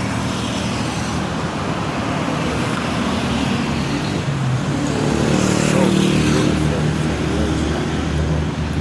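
City street traffic: vehicle engines running and passing in a steady rumble, growing a little louder midway, with faint voices.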